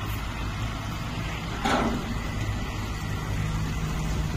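Reach stacker's diesel engine running steadily under load while the machine carries a container, with a brief sharp burst of noise about halfway through.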